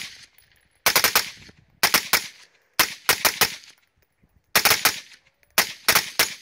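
Suppressed Honey Badger AR pistol with a Franklin Armory binary trigger firing in binary mode, one shot on each trigger pull and one on each release. Five quick strings of several shots each, about a second apart.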